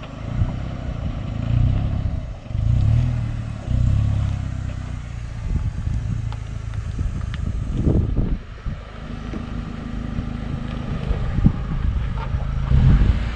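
4x4 off-road vehicle's engine running as it works along a rough trail, its revs rising and falling, with a few short knocks.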